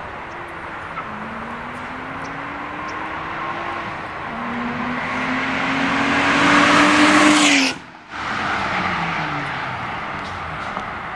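2011 BMW 135i's turbocharged inline-six through a Berk rear muffler delete, a very deep exhaust note, accelerating towards and past the listener. The pitch climbs, drops at an upshift about four seconds in, then climbs again and grows louder as the car nears. It cuts out for a moment about eight seconds in, then falls in pitch and fades as the car pulls away.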